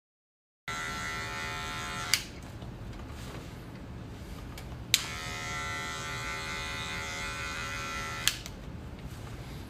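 Electric hair clippers buzzing, starting just under a second in. The buzz switches between a clear, steady tone and a quieter, rougher sound, with a sharp click at each change, three times.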